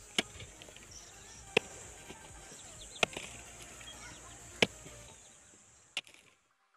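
A mattock striking very hard, tight-packed dry clay: five sharp blows about a second and a half apart, the soil barely giving under them.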